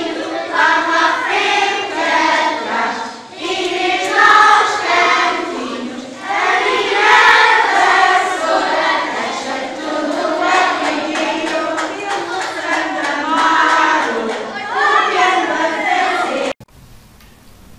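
A large group of schoolchildren singing together in chorus; the singing cuts off suddenly near the end.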